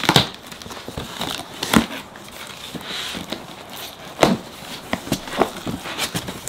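Blue painter's tape being peeled off a cardboard box, crackling and tearing, with scattered knocks and rustles from the cardboard.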